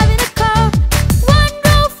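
Nursery-rhyme music: a lead melody in short, bouncy notes over a steady low beat.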